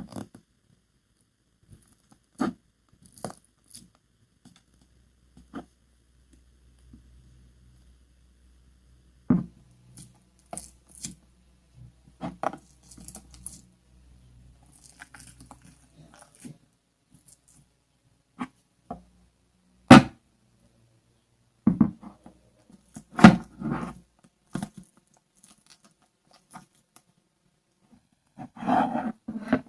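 Handling noises of a toy and its packaging: scattered taps, clicks and short crinkly rustles, with a few sharper knocks in the second half.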